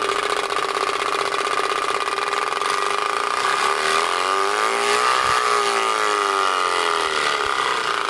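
Turbospoke bicycle exhaust on a spinning rear wheel: the spokes slap its twin-cylinder sound card and the pipe amplifies this into a steady, loud, motorbike-like buzz. The pitch wavers slightly about halfway through.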